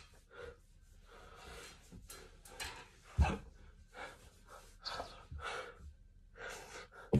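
A man breathing and gasping in short, breathy bursts, with a single thump about three seconds in.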